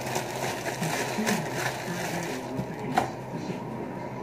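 Plastic bread bag crinkling as hamburger buns are wrapped back up, over a steady frying sizzle from a burger in the pan, with a sharp click about three seconds in.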